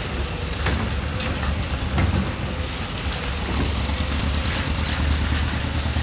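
Low, steady rumble of an idling engine under a haze of outdoor noise.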